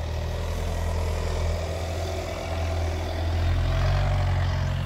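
Skoda Kodiaq 4x4 SUV's engine running steadily under load as the car climbs a slippery unpaved slope without wheelspin. Its note rises slightly about three and a half seconds in.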